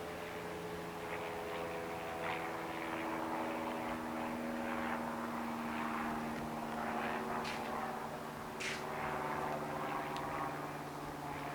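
A steady engine-like drone with several tones slowly sinking in pitch, and two short hissy clicks near the end.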